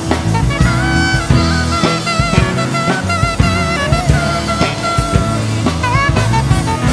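Live worship band playing an instrumental passage of a praise song, with drums and bass under a single lead melody line that glides and wavers.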